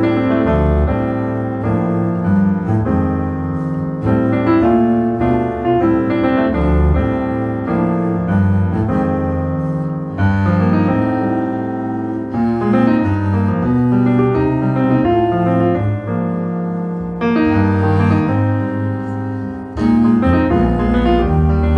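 Piano music played back over a hi-fi system: a tube amplifier driving Focal Electra 1038 Be floor-standing loudspeakers, with many notes changing throughout.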